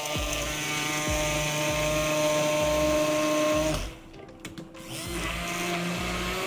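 Braun MultiQuick 7 hand blender motor running with a steady whine as its blade purées tomato chunks in a beaker. It drops away for about a second, a little before halfway, then runs again at a slightly different pitch.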